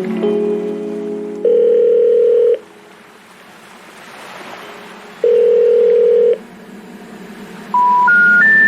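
Background music of held electronic notes: a steady beep-like tone about a second long sounds twice, with a faint hiss between, and near the end three short beeps step up in pitch.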